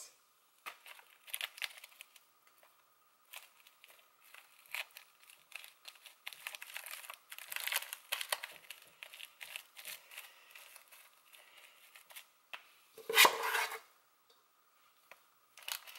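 Plastic rice paddle scooping sticky sushi rice and dropping and spreading it over nori sheets in a metal springform pan: irregular soft scrapes and rustles, with one louder scrape-and-knock about 13 seconds in.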